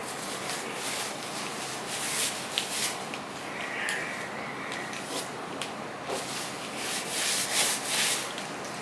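Paper tissue rubbing and rustling against the face, loudest in a run of bursts about seven to eight seconds in. Earlier there are softer rustles and small clicks from a hand working rice and fried fish on a steel plate.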